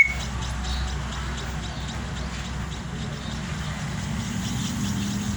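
Steady background rumble and hiss like road traffic, with faint, quick high chirps in the first second or so.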